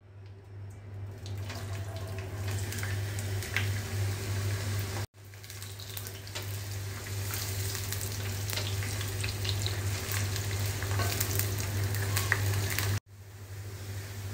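Sliced bitter gourd (karela) sizzling as it fries in hot oil in a nonstick pan, with a spatula scraping and stirring the pieces. A steady low hum runs underneath, and the sound drops out briefly twice, about five and thirteen seconds in.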